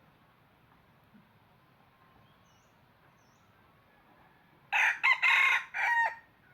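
Red junglefowl rooster crowing once near the end, a short crow of about a second and a half broken into three parts.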